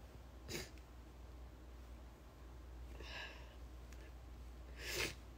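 A woman crying quietly: three short sniffs and shaky breaths, about half a second in, about three seconds in, and the loudest near the end.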